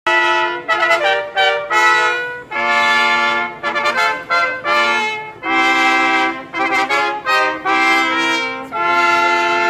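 Trumpet-led brass music: a melody of short, separate notes broken by longer held ones, starting abruptly.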